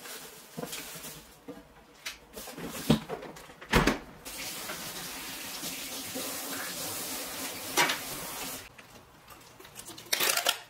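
Kitchen tap running into a sink for about four and a half seconds, a steady hiss of water. A few knocks of kitchenware come before it, and a short loud burst of noise near the end.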